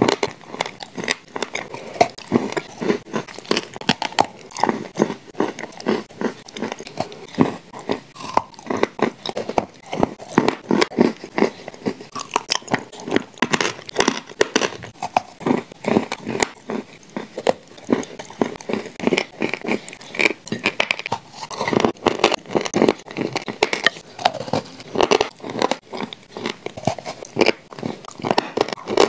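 A person biting and chewing shortbread cookies coated with clay paste and cream, close to a clip-on microphone: an irregular run of crunches and chewing clicks, several a second.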